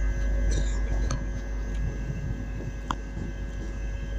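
Northern Class 323 electric multiple unit pulling out, its electric traction equipment giving a steady hum with several held tones, and a couple of faint clicks.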